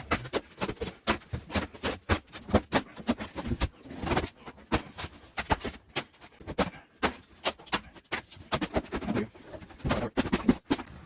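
Rapid, irregular knocks, clatters and scrapes of hand demolition work: material being pried, torn out and dropped, several impacts a second.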